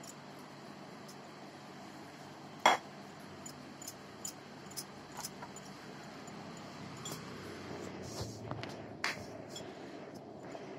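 Light clicks and knocks as chapati dough is rolled out with a rolling pin on a stone rolling board. One sharper knock comes a little under three seconds in, and scattered fainter ticks follow.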